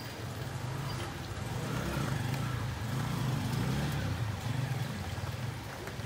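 Steady rain with a motor vehicle's engine running close by. The engine hum grows louder about a second in and eases off near the end, as a car does when it passes slowly on a wet street.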